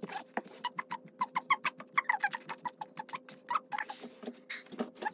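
A rapid run of short, high squeaky chirps and sharp clicks, several a second, from a person doing push-ups on carpet.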